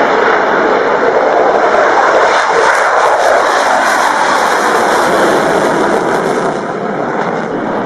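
An F-16 fighter's single afterburning jet engine at full power on the takeoff run and climb-out: a loud, steady jet roar that thins a little near the end as the aircraft climbs away.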